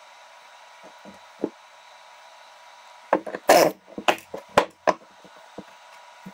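A metal lathe faceplate and a wooden blank being handled and set down on a wooden workbench: a few soft ticks early on, then a quick cluster of knocks and clunks about three to five seconds in.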